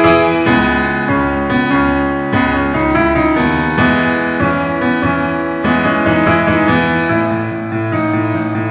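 Background music led by piano or electric piano, with sustained chords and a melody changing note by note.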